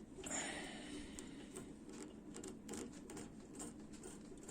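Faint handling noises of work inside an opened microwave oven: a short rustle lasting under a second near the start, then scattered small clicks and taps, over a low steady hum.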